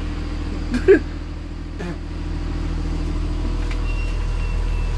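School bus engine idling, a steady low hum. About a second in, a brief voice-like sound cuts in.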